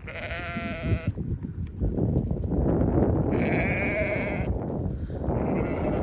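A flock of ewes bleating, calling to be fed: a wavering bleat at the start, a higher one about three and a half seconds in, and a third beginning near the end, over steady background noise.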